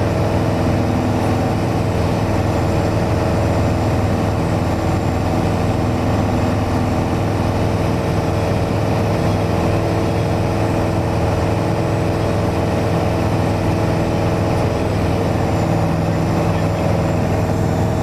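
Steady drone of a Mooney's single piston engine and propeller in flight, heard from inside the cabin, holding one even pitch throughout.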